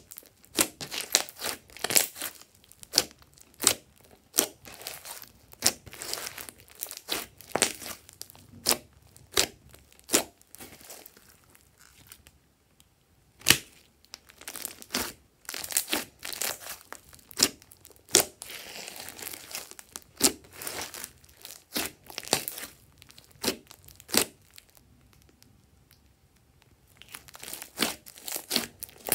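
Hands squeezing, stretching and pressing glossy slime, making irregular sharp crackling pops and clicks of trapped air, with two brief lulls.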